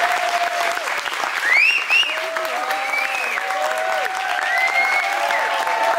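Audience applauding, with voices cheering and calling out over the clapping.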